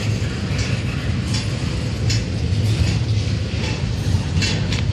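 Norfolk Southern double-stack intermodal train rolling past: a steady low rumble with sharp metallic clicks every half second to a second.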